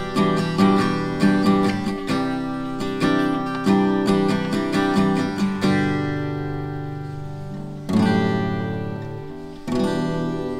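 Acoustic guitar played solo: a quick run of picked and strummed chords, then slower strums, each left to ring out, near the end.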